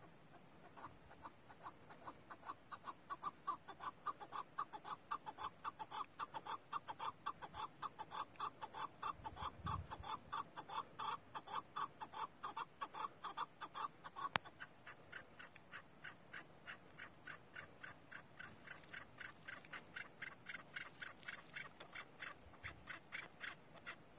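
Chukar partridge calling: a long run of rapid, repeated clucking notes, several a second. The notes shift higher about halfway through, and a single sharp click sounds partway through.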